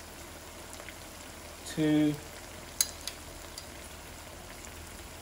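Onions frying in oil and ghee in a wok, a steady gentle sizzle as chopped ginger is spooned in. About two seconds in comes a short hummed voice sound, and a moment later a couple of sharp clicks.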